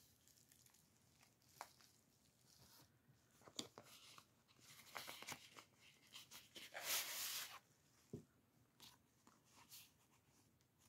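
Paper and card rustling and tapping as the pages and tags of a handmade junk journal are handled and slid out of a pocket. The loudest is a short sliding rustle about seven seconds in.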